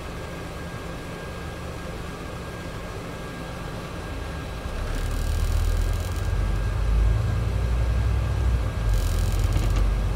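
Scania E400 double-decker bus's diesel engine, heard from the upper deck: it idles at a standstill, then about five seconds in the bus pulls away and the engine note grows louder and heavier. Two short hissing bursts, about five and nine seconds in.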